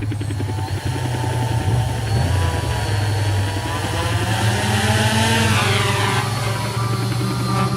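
RC quadcopter running: a steady, loud low chopping drone, with a motor whine that glides up and down in pitch about halfway through.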